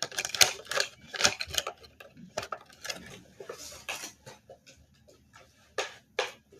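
Hard 3D-printed plastic parts clicking and clattering as printed dragon eggs are handled and opened: quick irregular clicks, thick at first, then thinning to a few single clicks.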